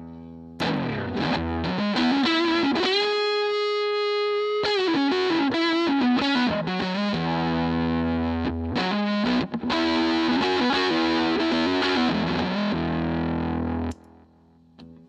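Fender Telecaster through a Dunlop Fuzz Face pedal into a Fender Pro Junior amp, playing a loud, distorted fuzz lead that comes in about half a second in, with one note bent up and held steady around the fourth second. Near the end the fuzz is switched off and the guitar drops to a quieter clean tone.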